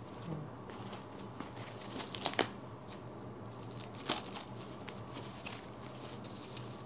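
Packaging wrap crinkling and rustling as it is pulled off a new leather handbag, with sharper crackles about two seconds in and again around four seconds.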